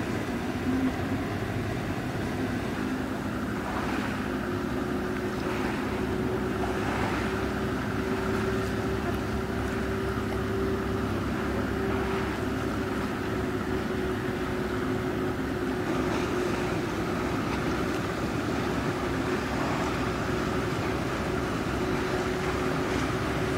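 Ship engines running with a steady drone, a second steady hum joining about four seconds in, over a haze of wind and water.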